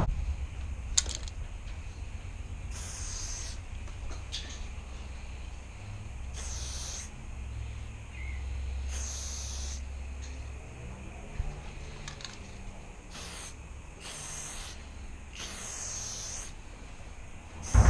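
Aerosol spray paint can hissing in short bursts, about six in all, with a few sharp clicks between them. A low steady rumble runs underneath.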